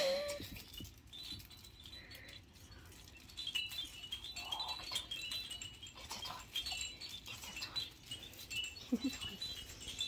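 A plastic puppy rattle toy jingling with short high chiming tones and small plastic clicks as a puppy chews and shakes it. A single sharp knock comes right at the start.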